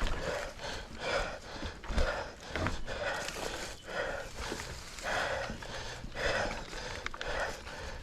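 A mountain biker panting hard in quick, heavy breaths, about two a second, over a low rumble with a few sharp clicks.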